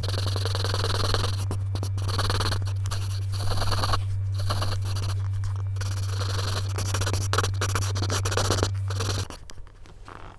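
Pencil scratching on paper in quick drawing strokes broken by short pauses. A steady low hum runs beneath and stops about nine seconds in, where the scratching also goes quieter.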